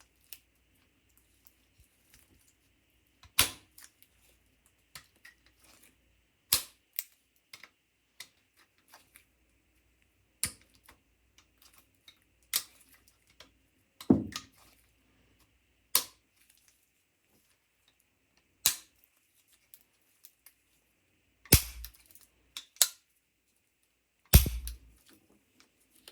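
A series of sharp metallic clicks and knocks, about one every two to three seconds, with fainter ticks between: the pistol's metal parts being handled and fitted together. The heaviest knocks, about halfway through and twice near the end, carry a dull low thump.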